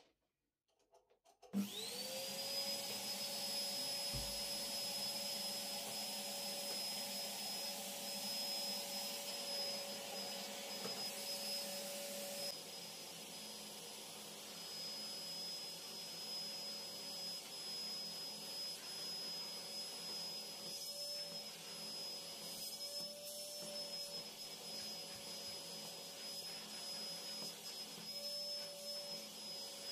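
Vacuum cleaner switched on about a second and a half in, its motor spinning up to a steady whine and running on, the pitch dipping briefly a few times.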